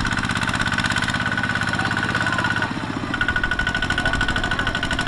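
Single-cylinder diesel engine of a Kubota two-wheel hand tractor running with a fast, even knock and a steady high whine. The sound dips briefly a bit under three seconds in, then comes back a little louder.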